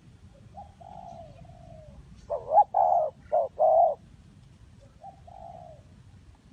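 Spotted dove cooing. A faint drawn-out falling coo comes first, then a loud phrase of four short coos about two seconds in, and another faint coo about five seconds in.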